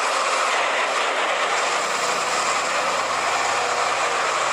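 Large Caterpillar wheel loader working, its engine running as it tips a full bucket of dark material into a dump truck. The result is a steady, dense, hissy machine noise with no pauses.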